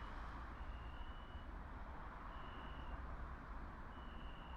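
A high electronic beep, each tone under a second long, repeating about every second and a half over a steady low rumble.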